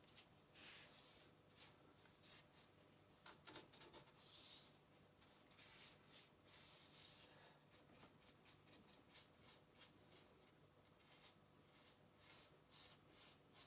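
Faint rubbing and scraping strokes from hands-on work on a lathe, growing into quick repeated short strokes in the second half.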